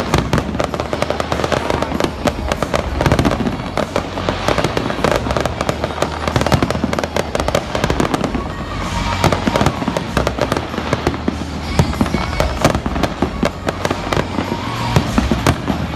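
Fireworks display: aerial shells bursting one after another in quick succession, many bangs and crackles running together without a break.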